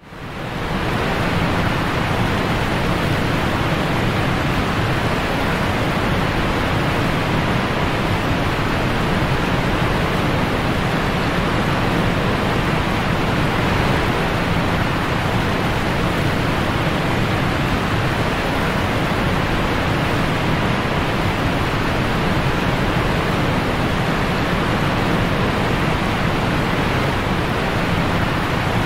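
Steady rush of whitewater rapids, a river pouring over and around rock ledges and boulders; it fades in over the first second.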